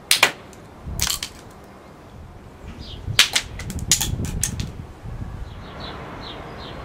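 Dry, ripe wisteria seed pods bursting open with sharp snapping cracks. There is a double crack at the start and another about a second in, then a quick cluster of cracks around three to four and a half seconds in.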